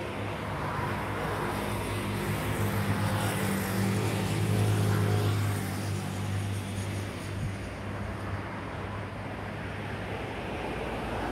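Jet engines of an Airbus A330 (Rolls-Royce Trent 772B) on final approach: a steady rumble with a low hum that swells to its loudest about four to five seconds in, then eases off.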